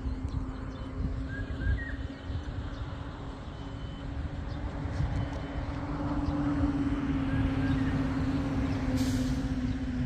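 A vehicle running: a steady low engine hum over rumble, swelling slightly about six seconds in.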